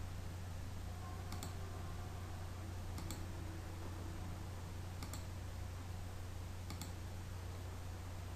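Computer mouse button clicked four times, about every two seconds, each click a quick double tick of press and release, over a steady low electrical hum and hiss.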